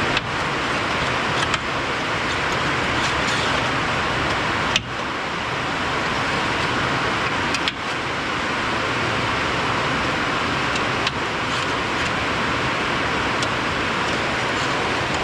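Steady, loud rushing noise without a clear pitch, broken by a few brief dips.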